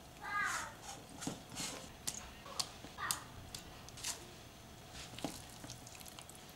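Raw whole chicken being rubbed with a tomato-paste spice mix by a rubber-gloved hand in a stainless steel bowl: faint, irregular wet squelches and short squeaks.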